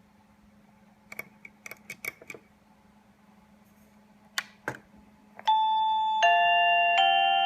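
Electronic chime of a 1byone video door phone ringing: several clean electronic notes in a stepping melody, starting about five and a half seconds in. Before it, a few light clicks about a second in and two sharper clicks around four and a half seconds.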